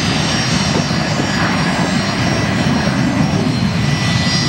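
Gulfstream business jet's twin rear-mounted jet engines running at taxi power as it rolls past: a steady rumble with a thin, high whine over it.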